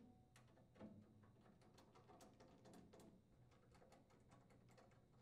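Faint, scattered clicks and light scrapes of a hand screwdriver turning screws into a furnace's sheet-metal cabinet, barely above room tone.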